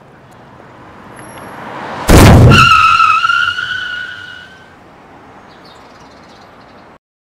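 A car hitting a pedestrian: a vehicle's noise swells, then a sudden loud impact about two seconds in, followed by a high, wavering tyre squeal that fades over about two seconds.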